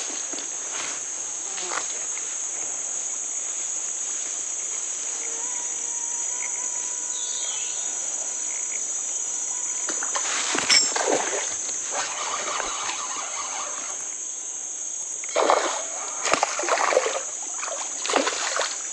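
A steady, high-pitched drone of forest insects, with a few bursts of water splashing from about ten seconds in and again near the end, as a snakehead thrashes at the surface on the angler's line.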